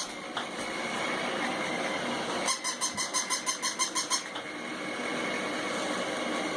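A high-pitched pulsing sound, about six pulses a second, comes in one burst of under two seconds about halfway through, over steady background noise.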